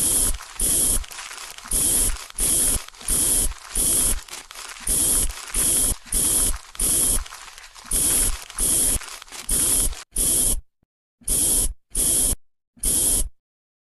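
Trigger spray bottle squirting: about eighteen short, sharp hisses of half a second each, mostly in quick pairs and threes with brief pauses between groups.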